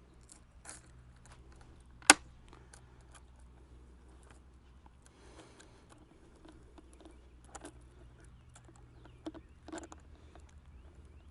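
Scattered small metallic clicks and clinks as a battery chainsaw's chain and bar are handled and refitted by hand, with one sharp loud click about two seconds in.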